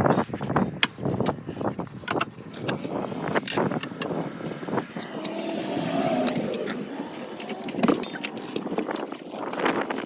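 Metal tire tools knocking and clanking against a tractor tire and steel rim, many irregular sharp strikes, as the bead is pried off the rim.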